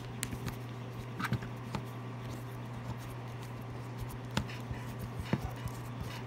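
A small screwdriver working screws out of a butane torch's plastic case: scattered light clicks and ticks of the tool and plastic being handled, over a steady low hum.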